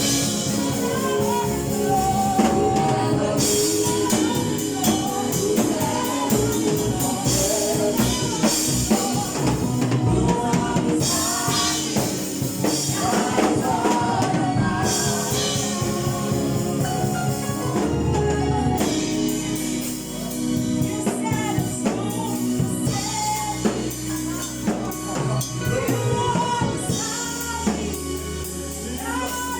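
Gospel choir singing with a band: drum kit and tambourine keeping a steady beat under the voices.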